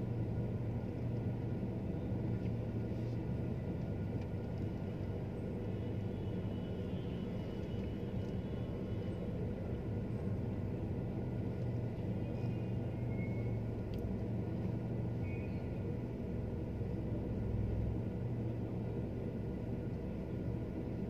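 Steady low engine and road rumble of a car driving slowly through traffic, heard from inside the car's cabin.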